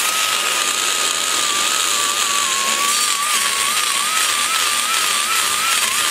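Die grinder running a large carbide aluminum-cutting burr, grinding away the aluminum around a valve guide inside a cylinder head port. A steady high whine over hiss, its pitch wavering slightly as the burr bites into the metal.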